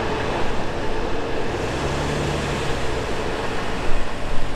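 Intermodal container freight train rolling away along the rails with a steady rumble. Near the end a car drives over the grade crossing close by, bringing a few sharp jumps in loudness.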